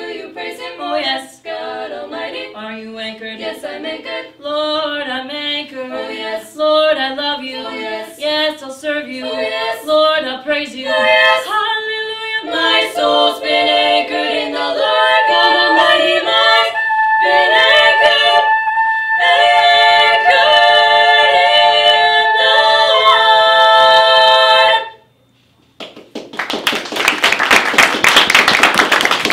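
Female a cappella vocal quartet singing a spiritual in close harmony: quick, rhythmic notes build to a loud final chord held for about ten seconds, which the singers cut off together. After a second's silence, clapping starts.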